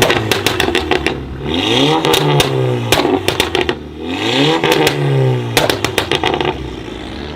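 Car engine with a modified exhaust revved about three times in a row. As each rev drops back, the exhaust gives a rapid string of crackles and pops on the overrun.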